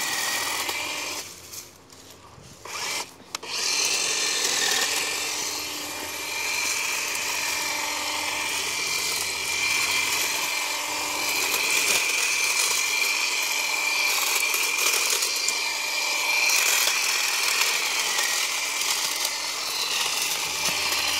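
Makita 18 V cordless hedge trimmer running with a steady high whine as its blades cut through brush and vines. It drops away briefly in the first few seconds, then runs on steadily from about four seconds in.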